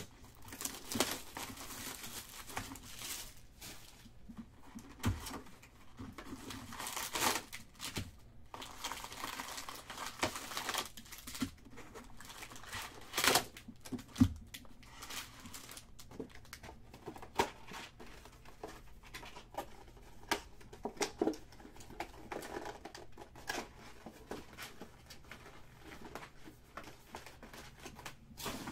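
Trading card box and packs being opened by hand: wrappers crinkling and tearing in irregular bursts, with small clicks and knocks from handling the cards.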